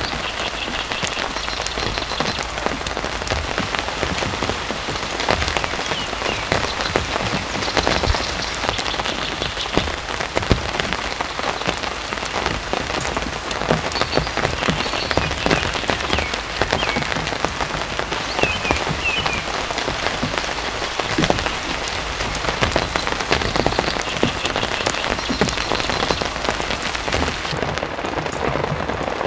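Steady rain falling, with many individual drops landing close by as sharp little taps over the continuous hiss.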